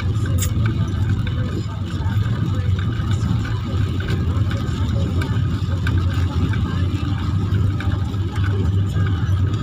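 Steady low drone of a car's engine and tyres on a wet road, heard from inside the cabin while driving.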